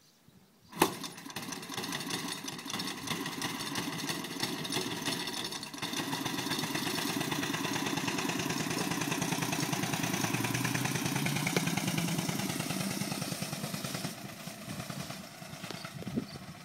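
1948 Cushman Pacemaker scooter's 4 hp single-cylinder engine starting with a sharp bang about a second in, then running with a rapid, steady popping. It grows louder for a while, then fades near the end as the scooter rides away.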